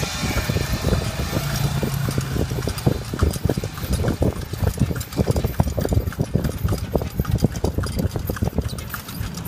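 Pony's hooves clip-clopping in a quick, uneven run on a paved road as it pulls a horse-drawn cart. A steady low rumble runs underneath.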